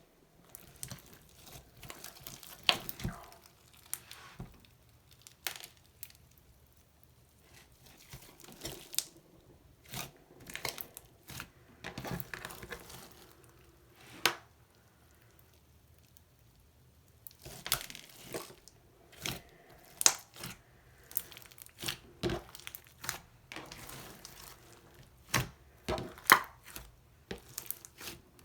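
Hands kneading, stretching and folding a large mixed batch of slime, with irregular sticky pops, clicks and crackles. There is a quieter pause about halfway through.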